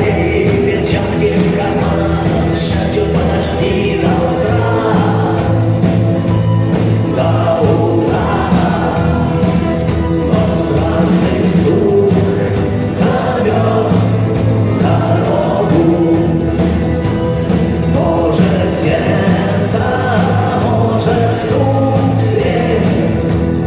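Rock band playing live with a singer's voice over a steady, unbroken bass and drum backing.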